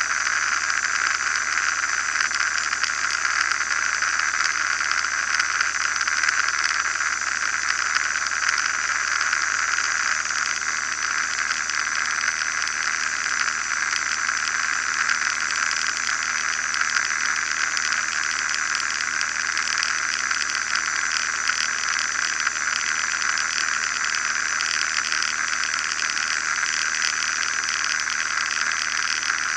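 Steady drone of an RV-9A light aircraft's engine and propeller with rushing wind, heard from inside the cockpit in level flight. It holds at one even, hissy pitch without change.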